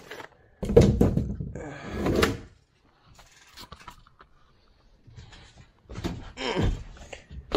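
Bumping and handling noise from a fiberglass-covered foam console being carried onto a boat, with two loud noisy stretches: one in the first couple of seconds and another near the end.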